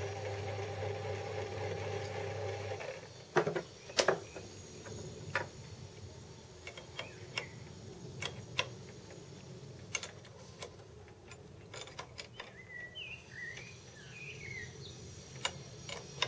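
Small bench lathe running with a steady hum, switched off abruptly about three seconds in. Then sharp metal clicks and knocks as the faceplate and its mounted angle plate are handled, the loudest two close together soon after the motor stops.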